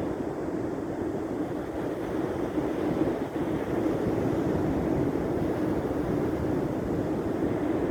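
Wind buffeting the microphone: a steady, fluctuating rumble that does not stop or change.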